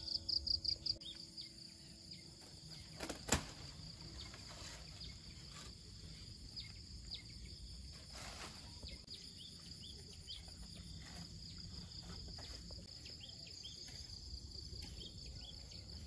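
Insects shrilling in a steady high-pitched drone, pulsing rapidly for the first second. There is a single sharp click about three seconds in, and a few faint short chirps scattered through.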